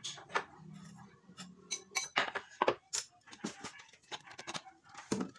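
A kitchen knife tapping on a wooden cutting board while chopping red chili peppers, a run of irregular sharp knocks, mixed with light metal-and-glass clinks.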